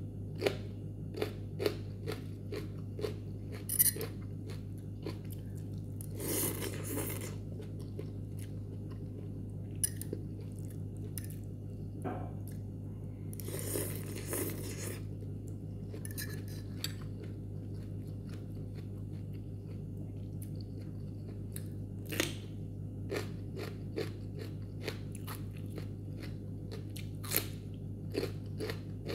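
Close-up eating sounds: crisp crunches of raw green bell pepper being bitten and chewed, scattered through the whole stretch. There are two longer slurps of noodles, one about six seconds in and another about fourteen seconds in.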